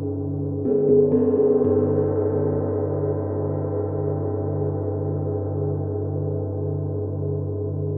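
Gong ringing with a long, layered hum and a low tone that pulses about twice a second. It is struck again about a second in, which brings a brief swell of brighter overtones.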